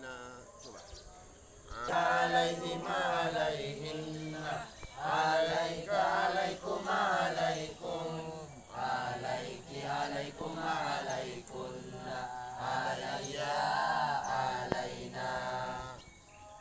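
A group of students chanting a recitation together in unison, in a steady sung rhythm. It starts about two seconds in and stops shortly before the end.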